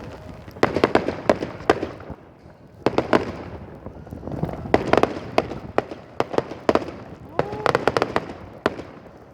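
Fireworks salute: rapid volleys of sharp bangs and crackles in clusters about a second long, with short lulls between them.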